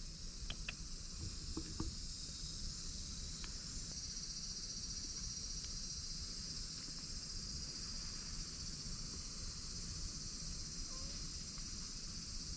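Steady, high-pitched chirring of insects, with a few faint clicks in the first two seconds.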